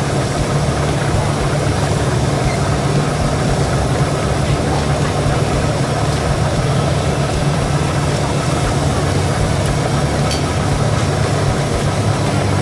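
Steady engine drone at an even pitch, with a low hum that does not change.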